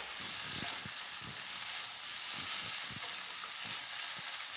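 Chopped tomatoes, onions and green chillies with ginger paste sizzling in oil in a kadai: a steady frying hiss with faint low knocks now and then.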